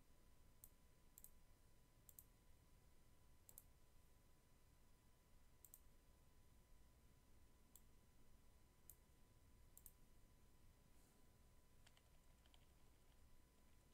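Near silence broken by faint computer mouse clicks, about a dozen, spaced irregularly, over a faint steady hum.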